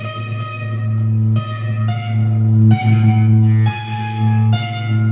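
Guitar notes plucked one at a time, about a second apart, each left to ring out, over a loud steady low hum.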